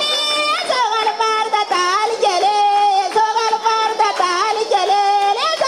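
Nuba women singing a traditional dance song in high voices, the melody gliding between held notes, with hand clapping.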